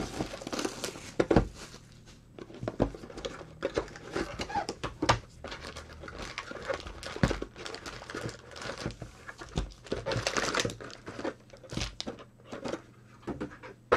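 A cardboard trading-card hobby box being opened by gloved hands: repeated sharp taps and knocks of cardboard on the table, with bouts of crinkling from the foil-wrapped packs as they are pulled out and set down.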